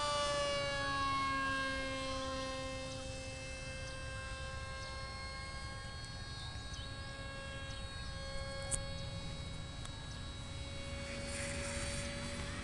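Radio-controlled F-117 model jet flying overhead, its fan giving a steady high whine that drops in pitch as it passes about a second in, then holds and edges up again later.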